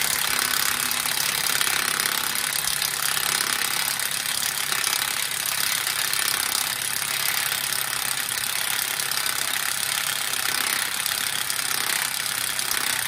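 Impact wrench hammering without a break, working to loosen a nut on the front hub; it stops abruptly at the end.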